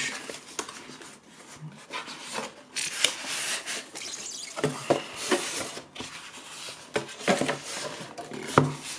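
Cardboard product box being opened by hand and a white foam packing insert slid out of it: irregular rubbing and scraping of cardboard and foam, with several sharp knocks and taps in the second half, the loudest near the end.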